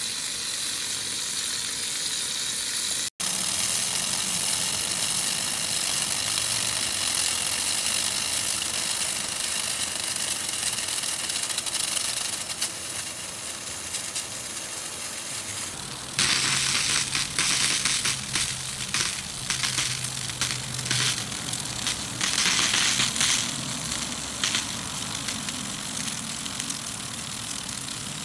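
Vintage Paul Zeyssolff Model B lawn sprinkler running: a steady hiss of its water spray, turning louder and uneven, with a crackling spatter, from about halfway on.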